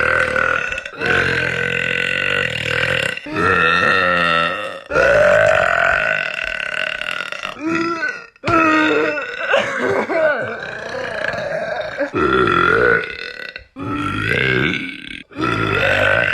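A woman burping loudly, again and again: a string of about eight long, deep burps one after another, some drawn out for two to three seconds.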